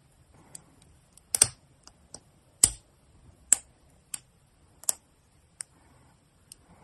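Plastic parts of a Bandai MGSD Freedom Gundam kit being pressed and snapped together by hand: about ten sharp plastic clicks and snaps at uneven intervals, the loudest about one and a half and two and a half seconds in.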